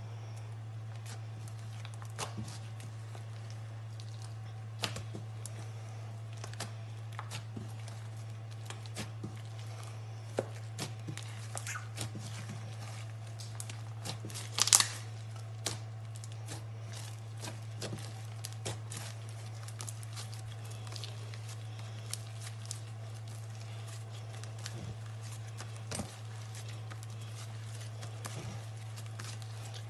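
Slime being squeezed and stretched by hand, giving scattered small crackles and pops, with a louder burst of crackling about halfway through, over a steady low hum.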